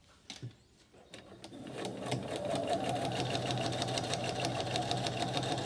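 Electric sewing machine starting up about a second and a half in, then running steadily with an even, rapid ticking of the needle as it stitches through layers of fabric.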